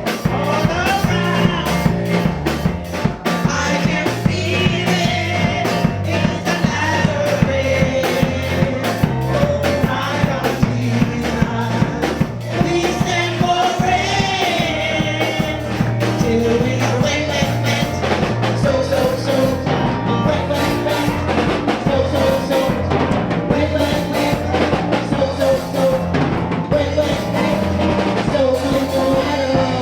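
A gospel praise song with a steady drum-kit and bass groove and voices singing the melody.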